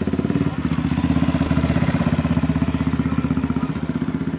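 Rally enduro motorcycle engine running steadily at low revs, with a rapid, even pulsing beat and no change in pitch.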